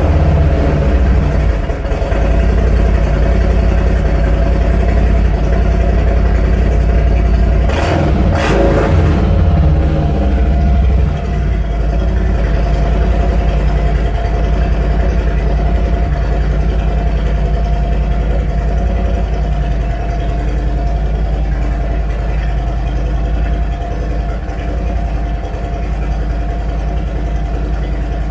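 Harley-Davidson Milwaukee-Eight 107 V-twin idling through newly fitted 4DXtreme Psycho slip-on mufflers, just after start-up. The throttle is blipped once, about eight seconds in, with a quick rise and fall in pitch.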